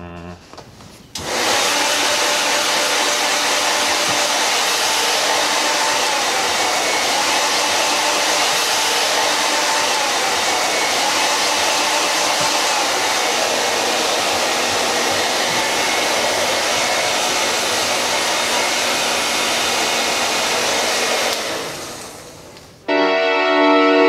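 A loud, steady rushing noise with a faint hum through it, starting suddenly about a second in and fading out near the end.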